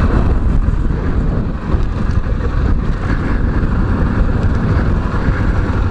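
Yamaha Serow's single-cylinder engine running as the motorcycle rides slowly along a dirt track, largely buried under a steady low rumble of wind on the handlebar camera's microphone.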